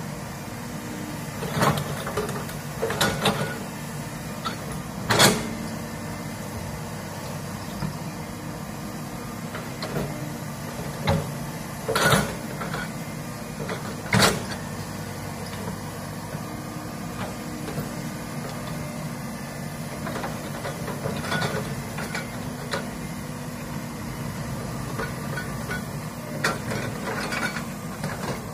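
Komatsu hydraulic crawler excavator's diesel engine running steadily under load while the bucket digs into soil and roots, with sharp cracks and knocks several times; the loudest are about 5, 12 and 14 seconds in.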